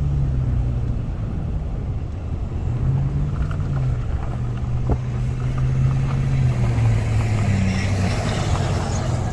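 A car driving: a steady low engine hum with road noise.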